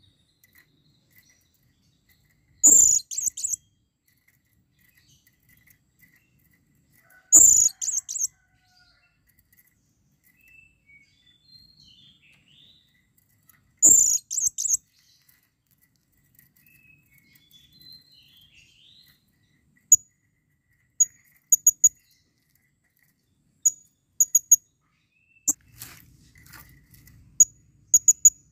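Blue-crowned hanging parrot (serindit) calling for a female. Three loud bursts of shrill, high notes come several seconds apart. About two-thirds of the way in, it switches to a run of short, thin high notes given in twos and threes.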